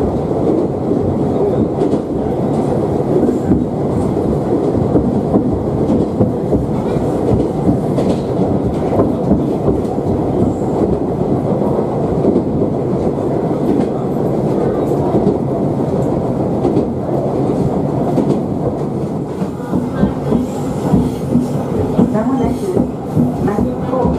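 Moka Railway diesel railcar running at speed, heard from inside the carriage: a steady rumble of engine and wheels, with the clickety-clack of the wheels over rail joints.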